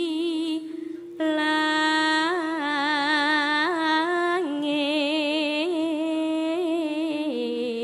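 Sinden, a female Javanese vocalist, singing through a microphone: long held notes with a wide vibrato and small ornamental turns between pitches. The voice breaks off briefly about a second in, then comes back.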